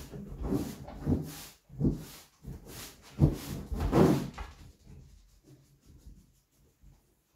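Inflated exercise balls rubbing and creaking under a person's weight as they bounce and shift on them, a burst about every half second. The sounds die down to faint rubbing after about four and a half seconds.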